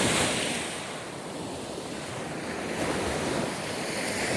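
Sea waves washing ashore, one surge at the start easing off and another building near the end, with wind buffeting the microphone.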